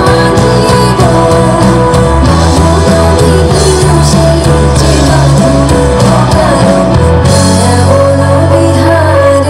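Loud song with singing over instrumental accompaniment and a strong, steady bass line.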